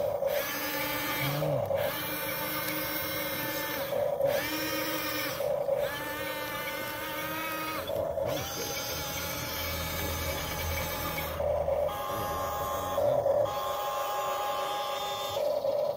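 Huina 1:12 RC excavator's small electric gear motors whining in runs of one to three seconds, stopping and starting again at a different pitch every time another function is worked.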